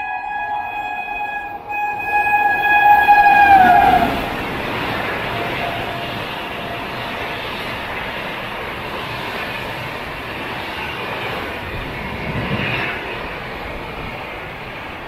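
Sealdah Rajdhani Express passing at speed: the locomotive's multi-tone horn sounds in one long blast, then drops in pitch and stops as the locomotive goes by about four seconds in. The coaches follow with a steady rushing rumble and clatter of wheels on the rails.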